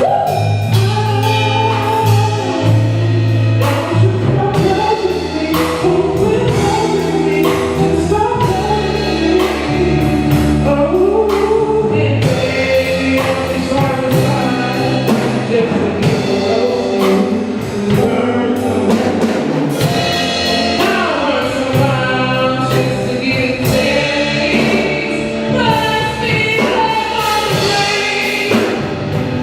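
A live band with a group of singers performing a soul/R&B song: several voices singing together over a drum kit and a bass line.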